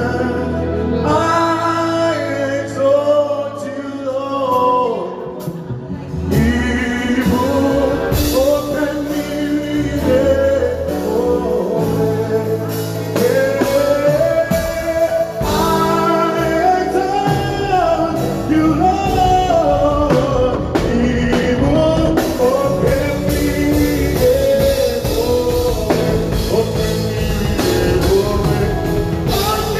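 A live band plays with a lead singer: a vocal melody over guitar and bass, with drums coming in about six seconds in.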